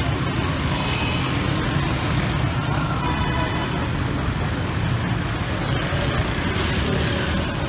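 Busy city street traffic: a steady rumble of cars, motorcycles and auto-rickshaws moving past.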